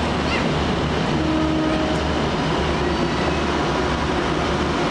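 State Railway of Thailand diesel railcar idling at the platform: a steady low engine rumble. A brief faint pitched tone sounds about a second in.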